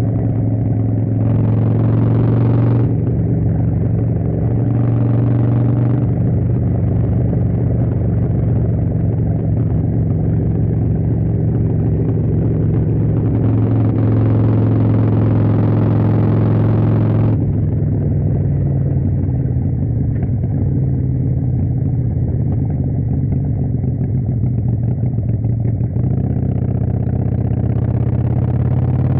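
Motorcycle engine running under way, a steady low note, with several stretches where more throttle is opened and the note climbing near the end as the bike speeds up.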